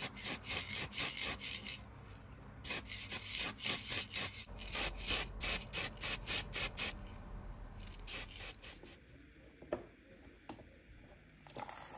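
Aerosol spray-paint can worked in quick short bursts: runs of rapid hissing strokes, about four or five a second, with brief breaks between runs. Near the end, a few light clicks as masking tape is handled with tweezers.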